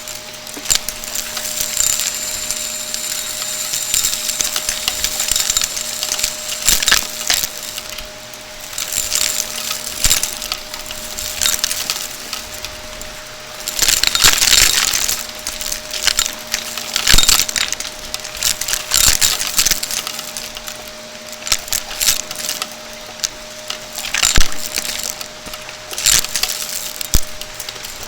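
Shark vacuum cleaner running with a steady hum, with irregular crunching, clicking and rattling as debris is sucked up through it.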